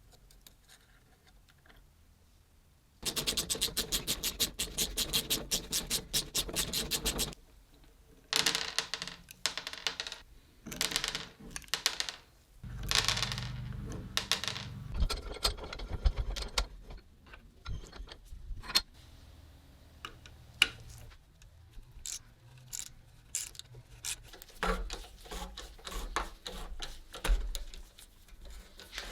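Workshop handling sounds of tools and small metal parts. About three seconds in, a run of rapid, even clicks lasts around four seconds. After it come scattered scrapes, knocks and clicks, with a low rumbling stretch just after the middle.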